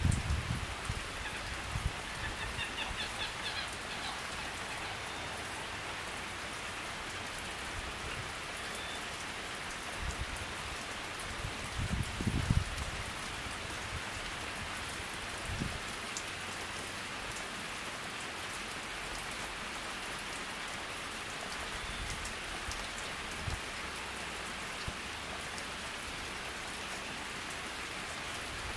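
Steady rain falling on a lake and the trees around it, an even hiss, broken by a few brief low rumbles, the loudest about twelve seconds in.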